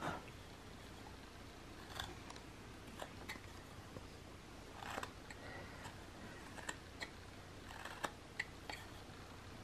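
Carving knife slicing chips off a small basswood figure: about a dozen short, irregular paring cuts, the sharpest right at the start.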